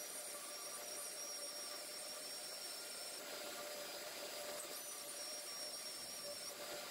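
Electric drill with a Forstner-type bit boring out the centre of a plum-wood log: a high motor whine that stops about three seconds in and starts again a second and a half later, over the steady hiss of a dust-extraction hose.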